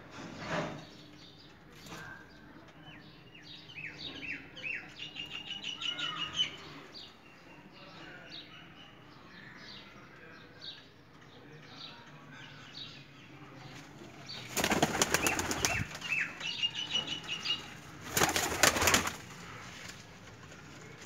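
White high-flyer pigeons flapping their wings as they take off from a ledge, in two loud bouts of rapid wingbeats, the first about two-thirds of the way through and the second a few seconds later.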